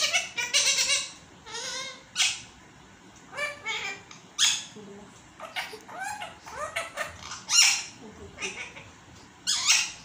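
Pet talking parrot calling: a string of short chirps and squawks that glide up and down in pitch, the loudest about three-quarters of the way through.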